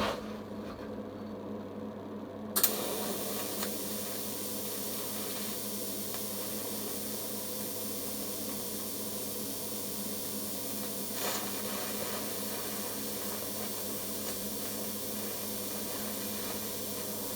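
Electric welding arc set to 25 amps, struck about two and a half seconds in and then hissing steadily while copper is welded with plain copper wire. A low hum runs underneath, and there is a brief crackle about eleven seconds in.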